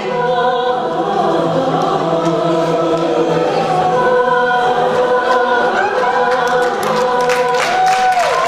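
A choir singing sustained chords in several parts, with one voice sliding down in pitch near the end. Scattered clapping starts to come in over the last second or two.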